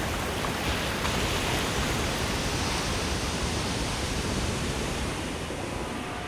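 Ocean surf breaking and churning over rocks, a steady rush of white water that swells a little early on.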